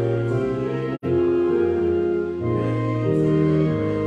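Organ playing slow, held chords that change every second or so. The sound cuts out for an instant about a second in.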